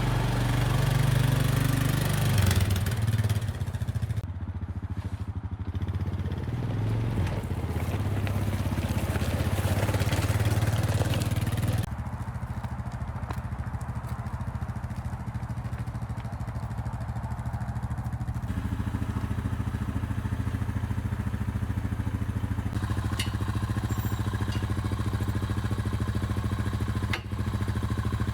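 A motor running steadily with a low buzzing hum, its tone changing abruptly about twelve seconds in and again about eighteen seconds in.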